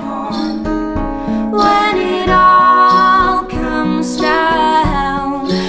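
Acoustic folk song played live: acoustic guitars with a woman singing long held notes.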